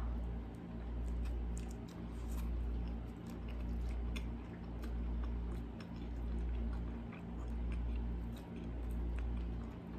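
Close-miked chewing of a mouthful of hot dog, with many small wet mouth clicks and smacks. Under it runs a low hum that swells and fades about every second and a half.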